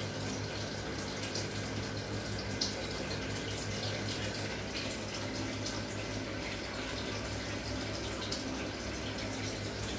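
Air-driven sponge filter in an aquarium bubbling steadily, with small bubble pops and trickling over a steady low hum.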